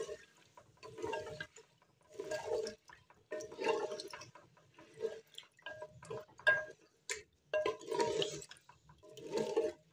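Wooden spoon stirring raw chicken pieces through oil in a clay handi: wet scraping strokes against the clay pot, irregular, about one a second.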